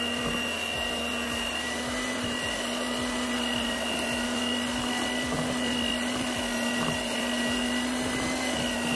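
Geepas electric hand mixer running steadily at one speed with a motor whine, its beaters churning through flour and cocoa as they are mixed into wet cake batter.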